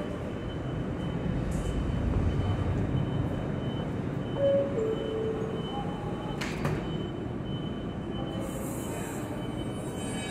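NYC subway R160 train standing in the station with its doors open, a steady low rumble. About halfway through a two-note descending door chime sounds, and a second or so later the doors slide shut with a thud.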